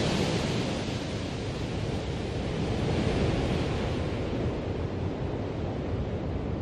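Steady wind rush buffeting the helmet microphone, with a low rumble underneath, as a snowmobile skims at speed across open lake water.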